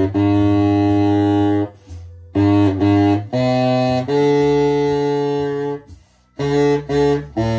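Baritone saxophone played solo: phrases of low notes, a few quick short ones leading into long held ones, with brief pauses for breath between phrases.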